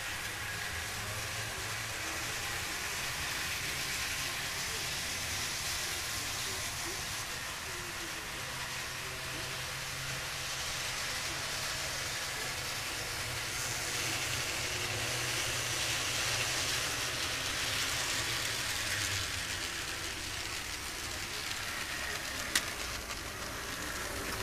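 Model train running on a layout's track: a steady whir and hiss with a low rumble that swells and fades as the locomotives circle the loop, and one sharp click near the end.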